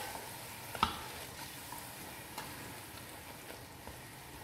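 A plastic spatula stirring kadhi with pakoras in a pot, with one sharp knock of the spatula against the pot about a second in and a few light ticks after, over a faint steady hiss.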